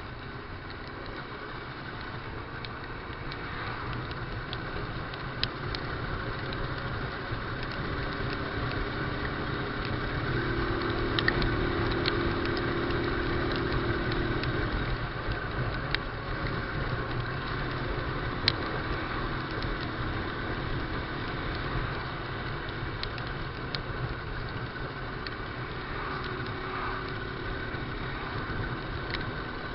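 Honda NX200's single-cylinder four-stroke engine running under way, with steady road and wind noise. The engine note grows stronger about ten seconds in and eases back after about fifteen seconds, and scattered sharp ticks sound throughout.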